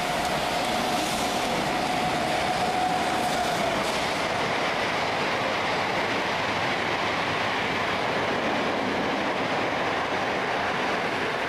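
Vintage passenger coaches of a heritage steam train rolling past, making a steady noise of wheels on rails. A thin steady squeal-like tone fades out about three and a half seconds in.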